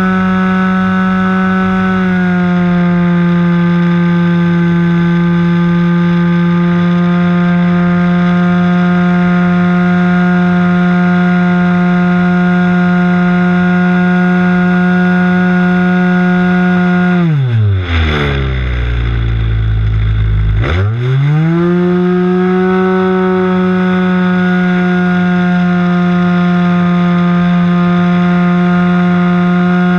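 Two-stroke glow (nitro) .46 engine of an RC trainer airplane, heard from on board, running steadily at high throttle. About 17 seconds in it is throttled back and the pitch drops steeply to a low idle. About three seconds later it is opened up again, rising quickly back to full power.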